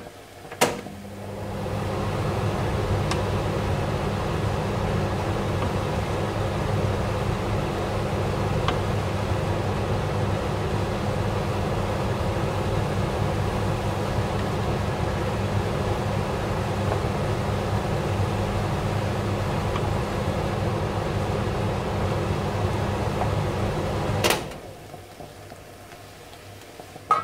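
A steady electric fan hum with a rush of air. It starts with a click about a second in, builds up over a second, runs evenly, and stops with a click near the end.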